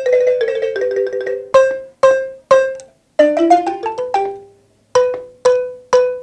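Wooden marimba with cristóbal-wood keys played with mallets: a rapid tremolo on a few notes, then three single strikes on one pitch, a quick rising run, and three more single strikes, each note ringing and dying away.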